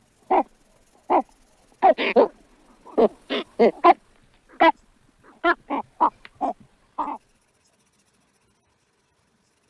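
A series of short, barking animal calls, about sixteen in quick, uneven succession, which stop about seven seconds in.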